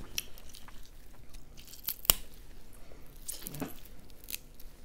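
Boiled crawfish shell cracking and snapping as it is broken apart and peeled by hand: a scattered series of sharp cracks and clicks, with one loud snap about two seconds in.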